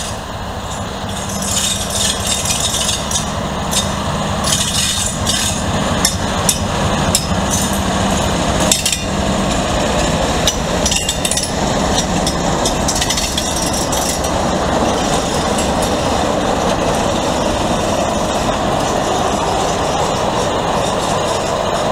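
Class 56 and Class 33 diesel locomotives moving slowly past with a coach, their engines running with a steady drone. Irregular metallic clanks and clicks from the running gear and couplings come through the first half.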